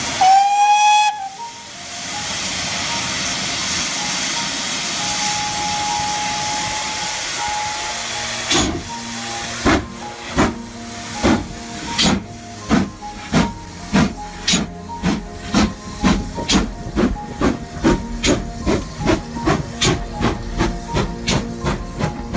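GWR 4500 'Small Prairie' 2-6-2 tank engine No. 4566 gives a short whistle blast, then a steady hiss of steam. About eight seconds in it starts away, its exhaust beats quickening steadily as the train picks up speed.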